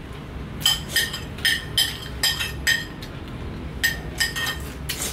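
Metal spoon clinking against a ceramic plate as food is scooped up: about ten short ringing clinks in two runs, with a pause of about a second between them.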